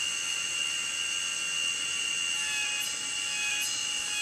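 Forest insects droning in a steady high-pitched chorus, several held tones layered together.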